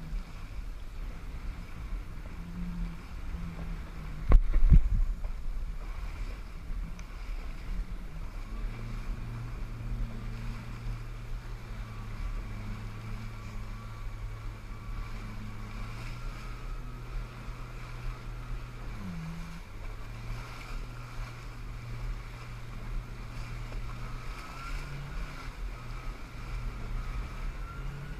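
Jet ski engine running steadily at speed over choppy water, with water rush around it. About four seconds in there is one loud thump. A little past halfway the engine note dips briefly and comes back up.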